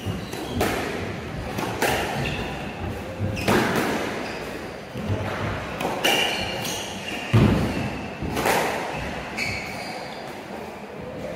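Squash rally: a sharp, echoing smack of the ball off the racket strings and the court walls every one to two seconds, with short high squeaks of court shoes on the wooden floor between the shots.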